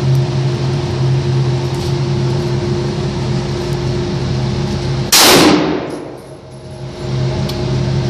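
One rifle shot from a Norinco Type 56 SKS, a semi-automatic rifle in 7.62×39mm, about five seconds in, with a long echoing tail in the indoor range. Before the shot a steady low hum fills the air.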